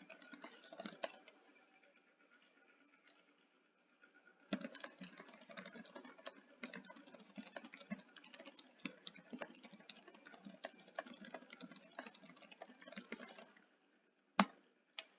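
Typing on a computer keyboard: a short run of keystrokes at the start, then quick, steady typing for about nine seconds, and one sharper single click near the end.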